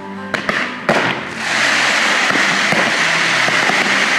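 Fireworks going off: a few sharp bangs in the first second, then from about a second and a half in a dense, continuous crackling. Music with steady tones plays underneath.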